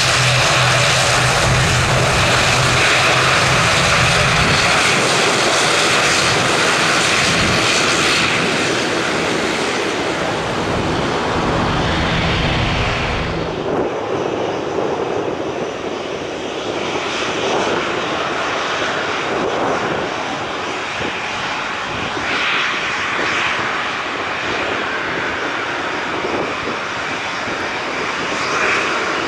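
Jet airliner engines running steadily, a Boeing 767's turbofans for the first half. About halfway through the sound changes abruptly to a slightly quieter, duller jet engine noise as another airliner taxis.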